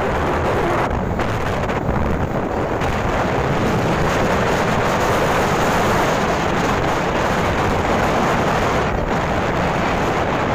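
Wind rushing over the microphone on a moving motor scooter: a steady, loud rush with no distinct engine note.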